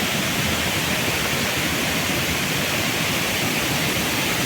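Waterfall water rushing in a steady, even hiss.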